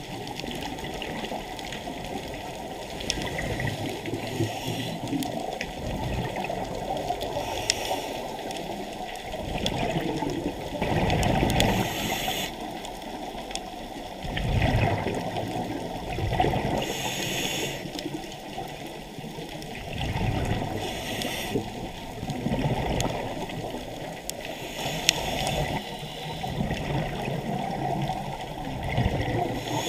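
Underwater bubbling and rushing of a scuba diver's regulator breathing, swelling in surges every few seconds as air bubbles are exhaled.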